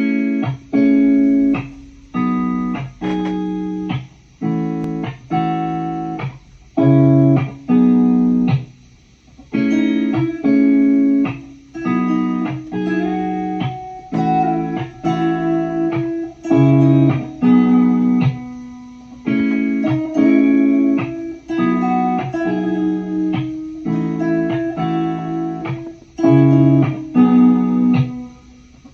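Lofi guitar music: clean guitar chords plucked one after another, about one a second, each fading before the next.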